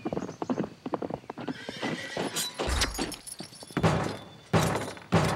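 A quick run of light clattering taps, then a gloved fist pounds three times on a heavy wooden door.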